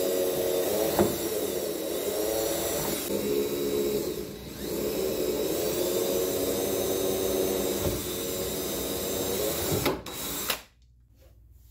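Cordless drill running under load, boring pilot holes through fiberglass-sheathed plywood. The motor eases off briefly about four seconds in, runs on, and stops suddenly near the end.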